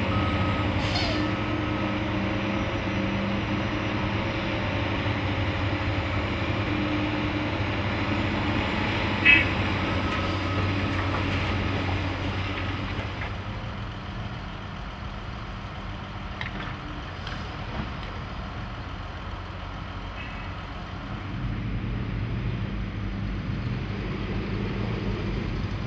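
Caterpillar bulldozer's diesel engine running steadily, with one sharp knock about a third of the way in. After a quieter stretch, a minivan stuck in deep sand revs, its wheel spinning in the sand.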